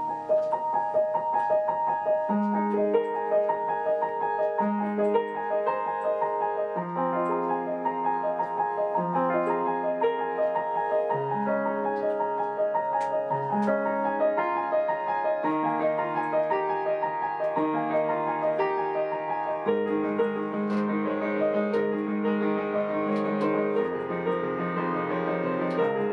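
Upright piano played solo: a steady figure of repeated upper notes over bass notes that change every couple of seconds, the texture growing fuller about twenty seconds in.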